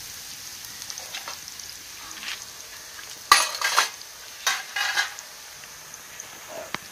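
Metal utensils clanking and scraping in two short bouts about a second apart, over a steady faint hiss.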